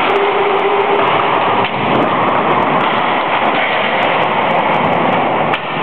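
Steady, loud rolling rumble of inline skate wheels on a wooden sports-hall floor, echoing in the hall during play.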